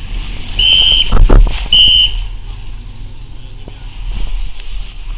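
Two short, high whistle blasts about a second apart, of the kind race marshals blow to warn of riders coming through, with a loud low rumble between them.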